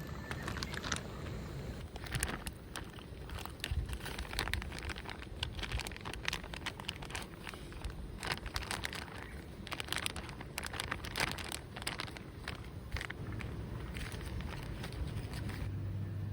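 Irregular crackling and rustling: many quick clicks and short scratchy scrapes, at times in bunches, over a low rumble.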